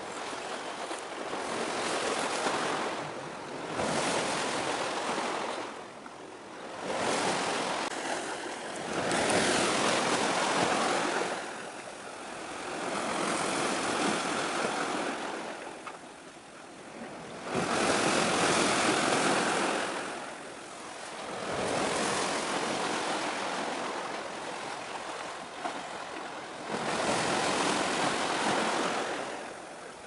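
Sea waves washing in against the shore, rising and falling in surges every few seconds.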